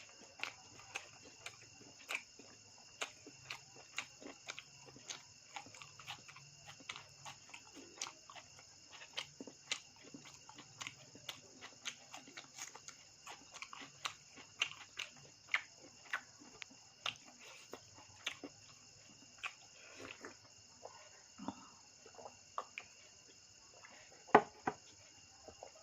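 Close-up eating sounds: irregular wet mouth smacks and clicks of chewing, several a second, with one sharper click near the end. A steady chirring of crickets runs underneath.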